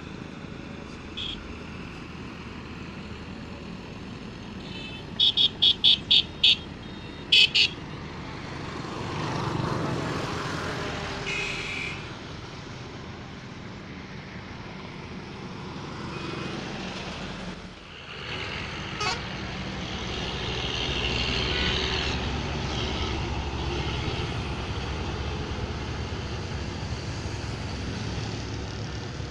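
Highway traffic with heavy trucks passing; the road rumble swells as vehicles go by about ten seconds in and again from about twenty seconds. A vehicle horn gives a quick run of five short toots about five seconds in, then two more, with single toots shortly before and near twelve seconds.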